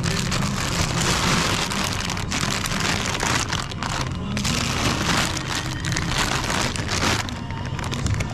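Plastic produce bags of apples crinkling and rustling as they are handled and lifted, a dense crackle with many small sharp crinkles.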